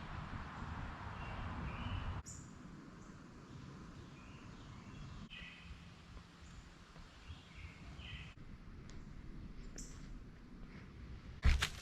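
Short bird chirps and calls, a few at a time, over a steady background hiss. A sharp knock comes near the end.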